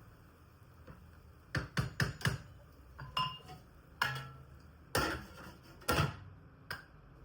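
Dishes and utensils clattering in a kitchen: a string of irregular clinks and knocks, a few ringing briefly, starting about a second and a half in and ending shortly before the end.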